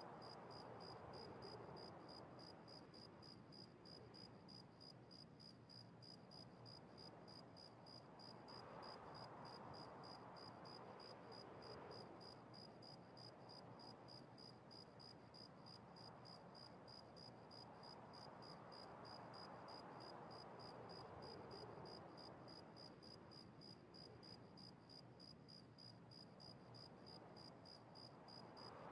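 Near silence: faint room tone with a steady, rapid high-pitched ticking and soft, slow swells of noise every several seconds.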